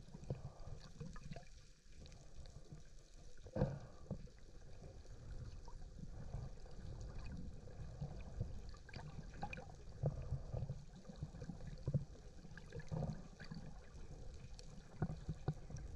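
Faint water sounds heard underwater: low gurgling and sloshing, with a few light knocks and clicks scattered through it.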